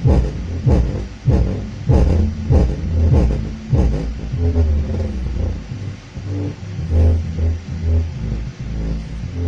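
Bass-heavy music played through a bare 15-inch P-Audio subwoofer driver in free air: a regular kick beat about every half second or so, then long held bass notes from about four seconds in. It plays with distortion, which the owner puts down to the driver lying flat on the surface.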